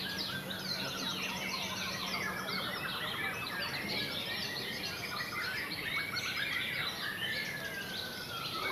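Many caged songbirds singing at once, their chirps, trills and whistles overlapping in a dense, continuous chorus.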